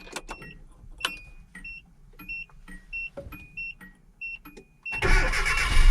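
A repeating electronic chime beeps about twice a second in the Nissan D21 Hardbody pickup, then about five seconds in the engine cranks on the newly fitted starter and fires up, loud.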